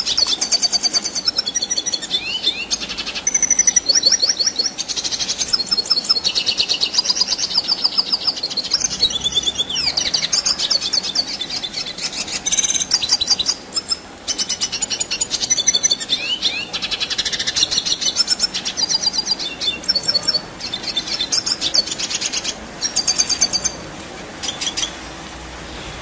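Red siskin singing a long, rolling song of rapid high trills and twitters, broken by short pauses. It grows quieter in the last few seconds.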